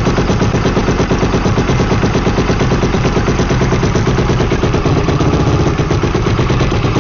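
Freshly rebuilt Yamaha YFZ450R single-cylinder four-stroke engine running steadily on choke just after its first start.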